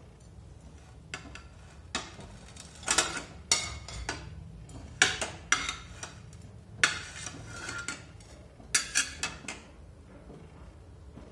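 Metal spatula clinking and scraping against a flat iron griddle (tawa) as toasted sandwiches are lifted off: a string of sharp clinks and short scrapes, some in quick clusters, stopping shortly before the end.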